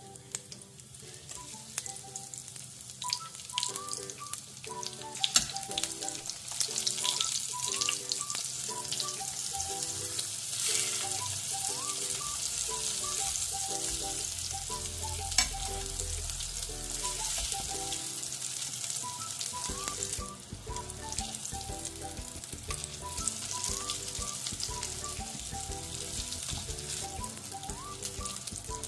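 Rava-coated eggplant slices sizzling in hot oil on a tawa, the sizzle growing over the first few seconds and then holding steady, with a few sharp clicks. Soft background music plays throughout.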